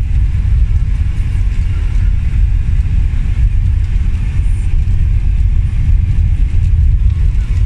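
Car driving over a cobbled stone road: a loud, steady low rumble of tyres and engine.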